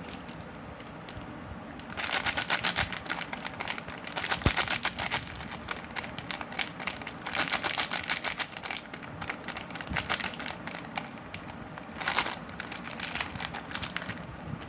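Knife cutting and scraping into a bar of soap: crisp crunchy crackling in about six separate strokes of one to two seconds each, starting about two seconds in.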